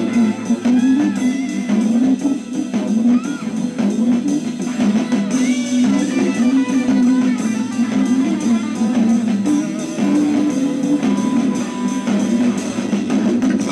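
Music: a guitar-led instrumental passage of a song.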